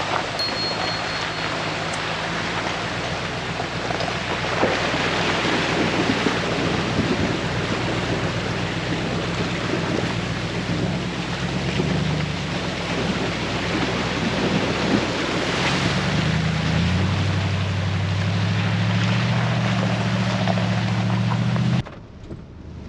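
A vehicle driving: a steady low engine drone under heavy road and wind noise, the engine note shifting about two-thirds of the way through. It cuts off abruptly near the end.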